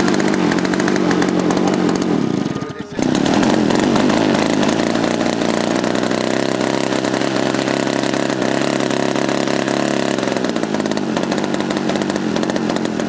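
Engine of a large radio-controlled aerobatic model airplane, just started with an electric starter, running loudly and steadily on the ground. It drops out for a moment about three seconds in, picks straight back up, and settles to a slightly lower pitch near the end.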